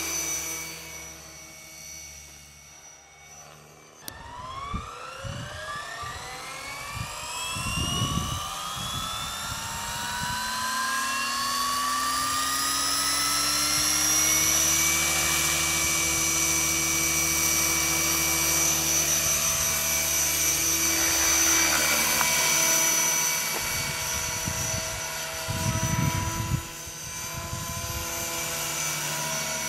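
Gaui Hurricane electric RC helicopter: about four seconds in, its motor and rotor spool up in a long rising whine. The whine then levels off into a steady high whine with rotor noise as it flies. There are a few low thumps near the middle and towards the end.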